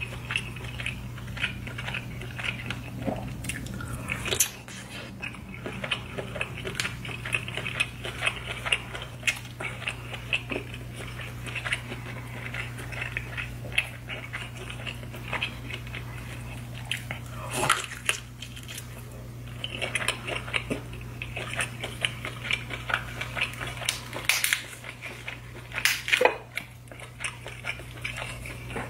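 Close-miked mukbang eating sounds: biting and chewing saucy seafood-boil crab and lobster, with wet smacking and many small clicks. Louder sharp cracks come about 4 s in, around 18 s, and twice near the end. A steady low hum runs underneath.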